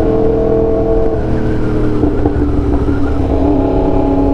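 Yamaha R1 sportbike's inline-four engine running at a steady cruise, heard from the rider's seat. Its pitch eases down a little about a second in and again about two seconds in, then holds, over a low wind rush.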